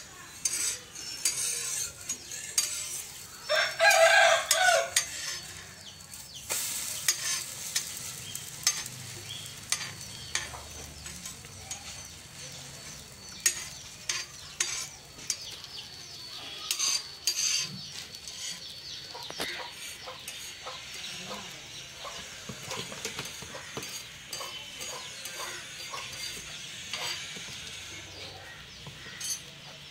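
Dosa sizzling on a hot black iron paper-roast tawa, a steady hiss with scattered light clicks. A rooster crows once, loudly, about four seconds in.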